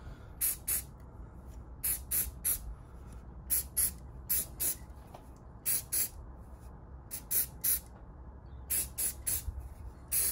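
Aerosol can of Simoniz grey primer spraying in short puffs, two to four quick bursts at a time, a group every second or so.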